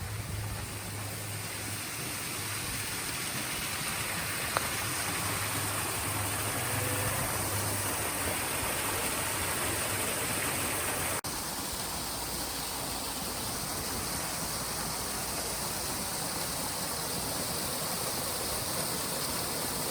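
Mountain stream water rushing over rocks, a steady even rush with a brief break about eleven seconds in.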